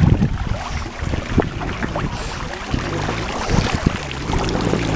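Pool water sloshing and splashing as a Neapolitan mastiff paddles through it close by, with irregular small splashes over a steady low rumble.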